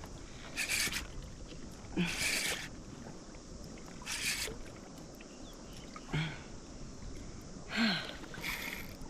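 A person breathing hard in short bursts every second or two, a few of them with a brief low grunt, as he strains against a fish on the line.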